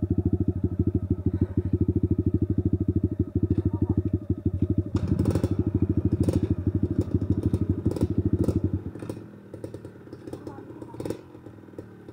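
Dirt bike engine running at low revs with a fast, even thudding beat, swelling briefly about five seconds in. About nine seconds in the close engine sound drops away, leaving a quieter engine and scattered clicks and knocks.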